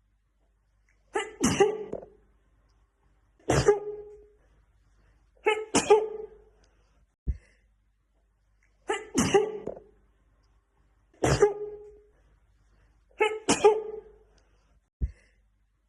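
A woman sneezing in a fit: six sharp sneezes about two seconds apart, most with a quick double onset. After every third sneeze there is a brief low thump, and the same three-sneeze run repeats as an edited loop.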